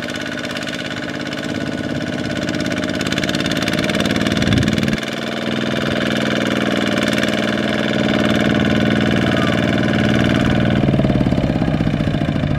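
Single-cylinder diesel engine of a Kubota RT155 two-wheel tractor running hard under load as it drags a loaded trailer through deep mud. It grows louder over the first few seconds and breaks off briefly about five seconds in.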